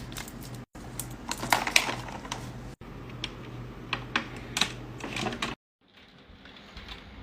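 Quick clicks, taps and light clatter of packaged snacks and containers being handled and set down, in short cut-together bursts; the last couple of seconds are much quieter, with only a few faint taps.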